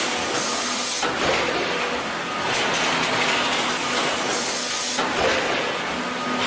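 Factory machinery running with a steady hissing noise and a faint hum, its character shifting every second or two.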